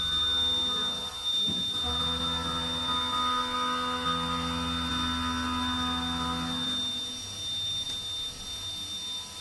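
Steady electric machine hum from a CNC machining centre, with a constant high whine over it. A deeper hum comes in about two seconds in and stops about seven seconds in.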